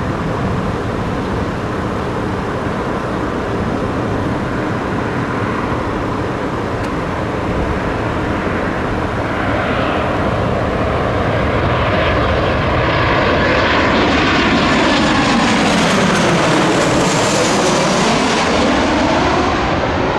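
Boeing 737 jet airliner on final approach with gear down, its engines' roar building as it nears and passes low overhead, loudest in the second half. As it passes there is a sweeping, phasing whoosh whose pitch falls and then rises again.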